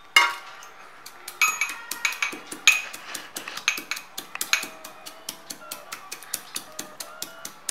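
Steel pestle pounding whole coriander seeds, fennel and cumin in a small steel mortar for a coarse crush: a run of sharp metallic knocks, several a second, some ringing briefly.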